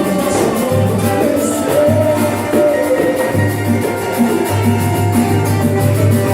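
A band playing upbeat music with a steady percussion beat, a bass line and melody instruments.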